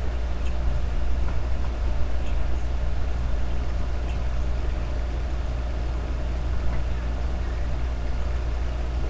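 Steady low electrical hum under an even hiss, with a few faint ticks.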